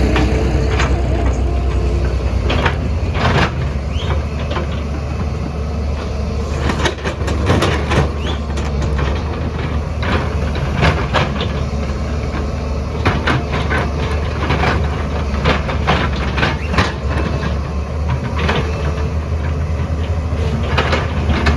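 JCB excavator's diesel engine running steadily under load, with many sharp knocks and clanks from the digging work.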